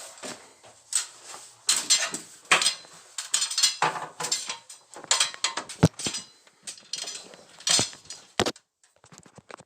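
Irregular clinks, knocks and rattles of a furnace's sheet-metal cover being handled, with one heavier knock about six seconds in. No burner or blower sound: the furnace is not firing, which the inspector puts down to a thermostat problem.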